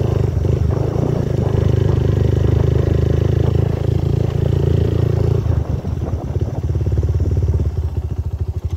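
Motorcycle engine running steadily under way up a steep road. About five and a half seconds in, the engine note drops, and near the end it settles into a slower, evenly pulsing beat as the throttle eases off.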